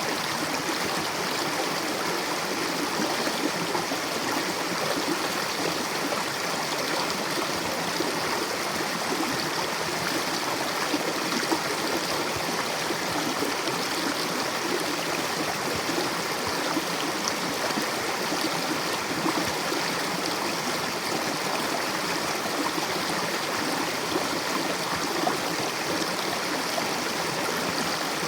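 Mountain river rushing over rocks: a steady, even rush of flowing water with gurgling.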